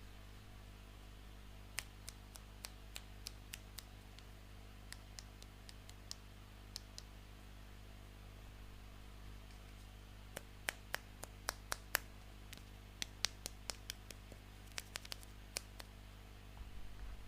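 Small plastic toy pieces clicking and tapping as they are handled and set down, in runs of quick sharp clicks, several a second, with pauses between. A low steady electrical hum lies underneath.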